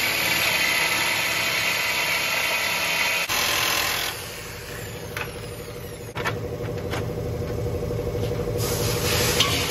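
Jigsaw cutting through a metal plate, the centre section of a car's upper shock mount. The cutting is loud up to about four seconds in, then stops, followed by quieter buzzing and a few knocks.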